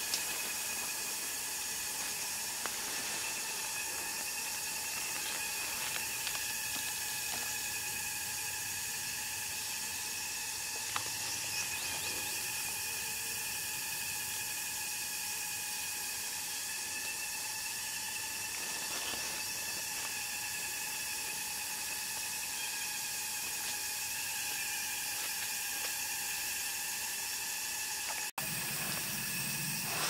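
Steady insect chorus: several high droning tones that hold unchanged over a hiss, with a few faint clicks. It cuts out for an instant near the end.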